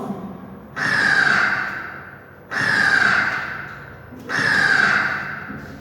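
Crow cawing three times, evenly spaced, each caw drawn out and falling slightly in pitch.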